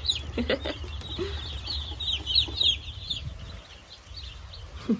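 A flock of baby Cornish Cross chicks peeping: many short, high chirps overlapping, thinning out after about three seconds.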